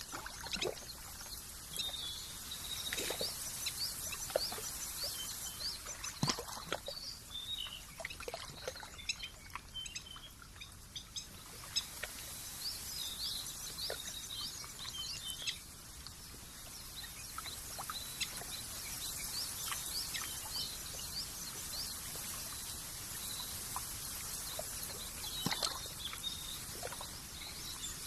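Small birds chirping in quick, short calls over a steady high hiss, with a few faint clicks scattered through.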